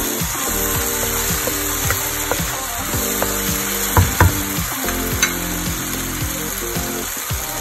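Chili and tomato sauce sizzling in hot peanut oil in a wok while a wooden spoon stirs it. A few sharp knocks of the spoon against the pan come through, the loudest about four seconds in.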